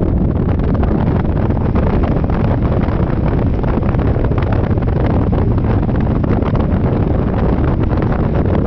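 Steady, loud wind buffeting the microphone of a rider moving at speed on a Yamaha Majesty 400 scooter, a deep rushing that never lets up.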